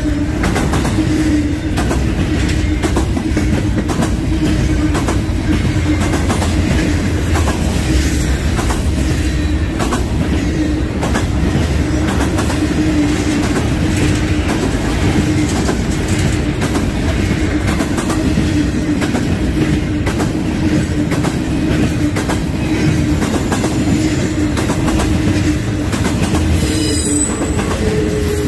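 A freight train's double-stack well cars rolling past close by: a steady rumble with a steady droning tone and irregular clicks from the wheels on the rails. Near the end a brief high-pitched wavering squeal of wheels on the rails.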